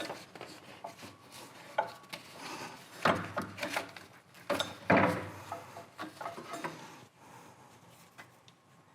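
Hand tools and metal parts knocking, scraping and clinking while the motor is unbolted from a roll-in bandsaw: irregular clicks and rubs, with two louder knocks about three and five seconds in.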